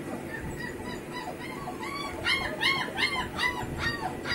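German Shepherd puppy whining and whimpering: a rapid series of short, high-pitched, rising-and-falling cries. They are faint at first and grow louder about two seconds in, roughly three cries a second.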